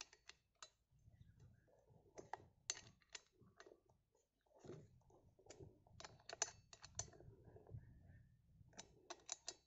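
Faint, irregular small clicks and taps of metal on metal as a nut on a chainsaw bar bracket is turned with an Allen key and the parts are handled.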